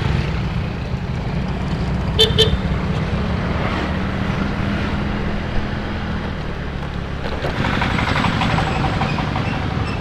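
Riding noise from a Yamaha Mio scooter on the move: a steady rumble of engine and wind. A horn gives two short toots in quick succession about two seconds in.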